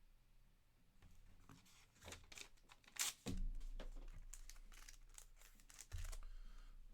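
Card packaging being handled: irregular crinkling and crackling that starts about a second and a half in and is sharpest around three seconds in.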